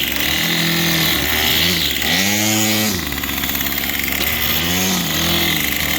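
Gas string trimmer engine idling and being revved up in several bursts, the biggest about two seconds in, dropping back to idle between them, as the repaired trimmer is tested.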